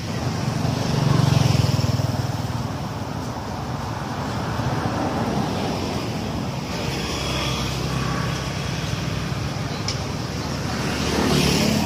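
Road traffic: motor vehicles passing with a steady engine and tyre rumble, swelling about a second in and again near the end as vehicles go by.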